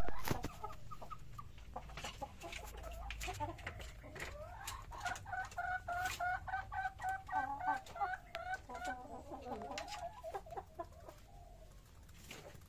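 Chicken clucking in a quick run of short, repeated calls, about three a second, with sharp clicks scattered between them.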